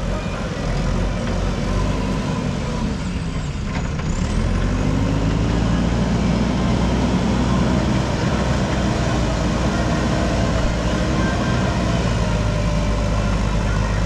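JCB backhoe loader's diesel engine running under load, its revs rising and falling as the machine works its front bucket through soil.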